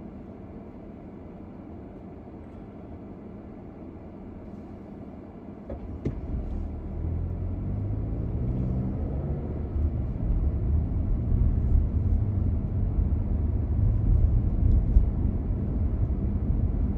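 Car driving, with a steady low hum of road and engine. About six seconds in it jumps louder with a click, and the engine tone then climbs in pitch under a heavier rumble, as when the car accelerates.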